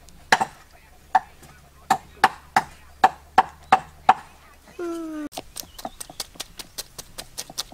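A knife chopping on a wooden cutting board, about ten sharp strokes roughly three a second, then a brief wavering cry. Then a fast run of light clicks as the knife scrapes a fish on the board.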